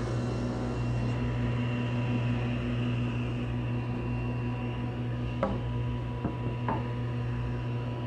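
Table saw running steadily at speed with its motor hum and whine, with a few sharp knocks from wood being handled about two-thirds of the way through. Right at the end the pitch begins to fall as the saw is switched off and spins down.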